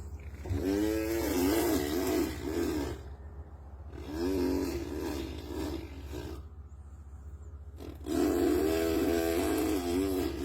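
A two-year-old boy imitating a string trimmer with his voice: three long buzzing drones, each wavering up and down in pitch like an engine revving, the middle one quieter.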